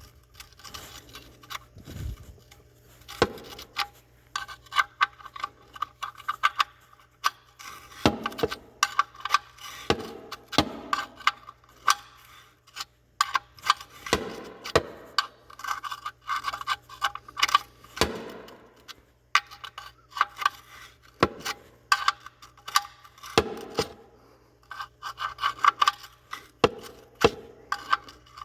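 Metal hand tools and parts clicking and rattling in repeated bursts, with scattered sharper knocks, during work on the car's drain plug and oil filter.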